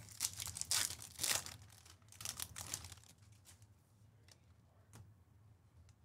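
Trading-card pack packaging being torn and crinkled by hand: a busy, crackly rustle for about three seconds that then dies down to a few faint clicks.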